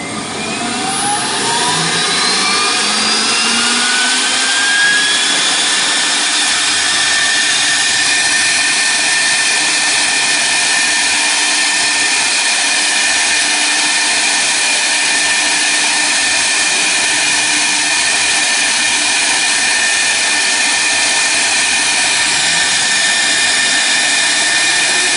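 CNC router spindle spinning up, its whine rising over the first few seconds, then running at a steady high whine as the bit cuts a clear acrylic sheet. The machine is resuming a job from a saved breakpoint.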